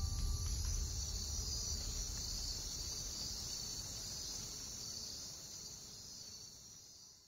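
Insect chorus, a steady high shrill, over a low rumble, fading gradually and stopping at the very end.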